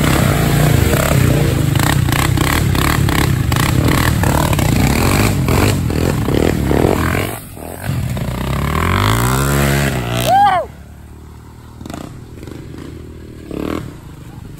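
Sport quad (ATV) engine running hard, with clatter over it; the revs rise and fall about eight to ten seconds in, then it drops back to a low idle.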